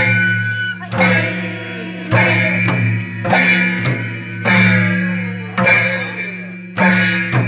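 Nepali folk percussion: madal barrel drums beating a steady rhythm with small hand cymbals (jhyamta) clashing and ringing about once a second.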